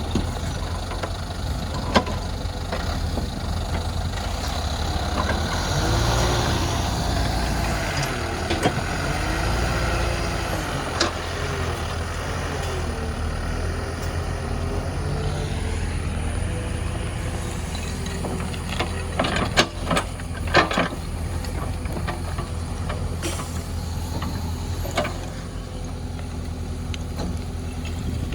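JCB backhoe loader's diesel engine running under load, its pitch rising and falling as it works, with sharp metallic knocks about two seconds in, around eleven seconds and in a cluster near twenty seconds.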